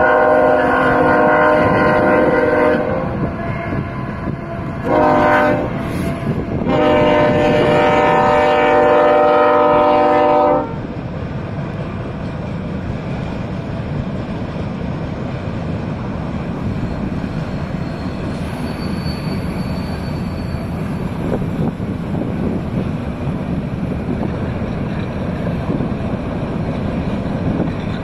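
Union Pacific diesel freight locomotive's air horn sounding three blasts: a long one, a short one, then a long one of about four seconds. After that, the steady noise of freight cars rolling past on the rails.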